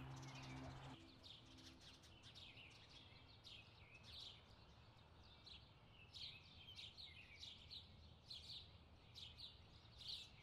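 Faint birds chirping: short, scattered chirps, several every second, over a quiet background hiss.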